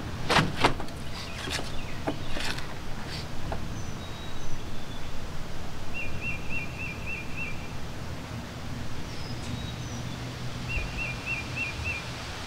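Woodland ambience with a bird singing a short trill of about five quick repeated notes, heard twice, over a steady low background hum. A few short knocks and rustles in the first three seconds.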